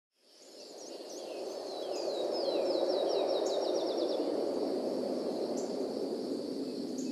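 Outdoor nature ambience fading in from silence: birds calling in short falling notes, with one run of notes that speeds up about two to four seconds in, over a steady high insect buzz and a low rushing background.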